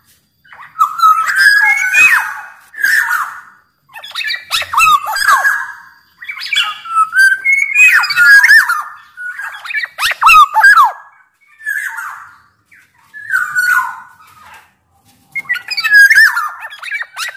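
Black-naped oriole (kepodang) singing in full voice: a run of short phrases of gliding whistles mixed with harsher notes, with brief pauses between them.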